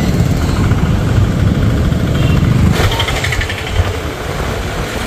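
Motor scooter riding along a road: engine and road noise with a heavy low rumble, which eases and turns hissier about three seconds in.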